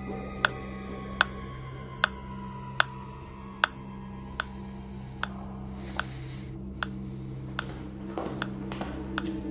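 Mechanical pendulum metronome ticking steadily at about 75 beats a minute, the ticks growing softer about halfway through, over a low steady hum.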